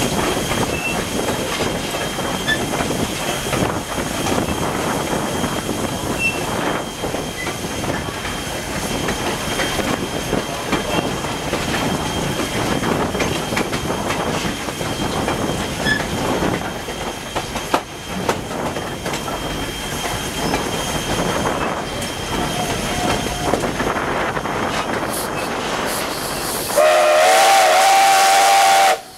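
Steady rumble and clickety-clack of a train running behind a 1910-built former Canadian National 2-6-0 steam locomotive, heard from an open-air car. About 27 seconds in, the locomotive's steam whistle sounds a loud, long chord blast, the warning blown after passing a whistle post.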